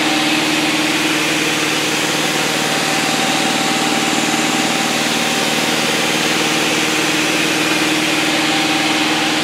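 Van's RV-6 light aircraft's piston engine and propeller droning steadily at cruise power, heard from inside the cockpit, with an even hiss over the drone.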